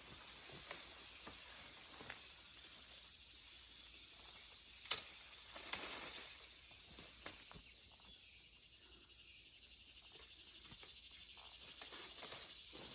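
Outdoor ambience: a steady high insect hiss, with a few sharp snaps or crackles, the loudest about five seconds in.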